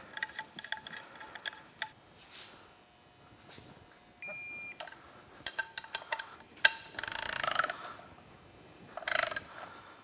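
Digital torque wrench giving one steady half-second beep about four seconds in, the signal that the bolt has reached its set torque of 89 inch-pounds. Around it are runs of sharp ratchet clicks and two short rasps from the wrench's ratchet head as the head bolts are tightened.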